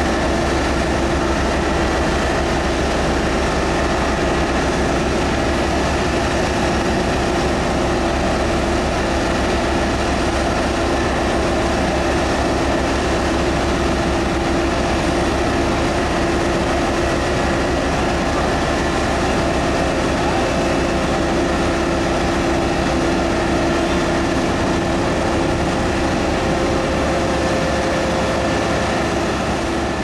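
Asphalt paver's diesel engine running steadily while laying asphalt, a constant drone with a steady hum in it.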